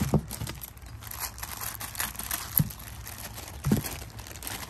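Thin clear plastic packaging bag crinkling and rustling as a rubber ventilation hose is handled and slid out of it, with a few sharp clicks along the way.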